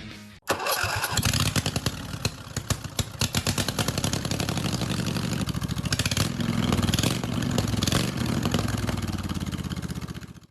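Small engine of a lawn tractor running, with its firing pulses plainly heard and loudness rising and falling as it is throttled. It comes in suddenly about half a second in and cuts off abruptly at the end.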